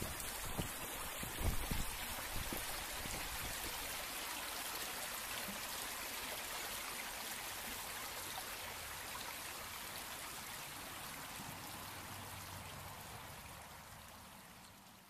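Steady rush of a flowing stream that fades out over the last few seconds. A few gusts of wind buffet the microphone in the first two seconds.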